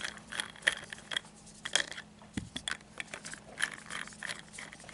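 Hard plastic toy parts clicking and knocking as the screwed-on wheels are worked loose and pulled off a take-apart toy construction vehicle.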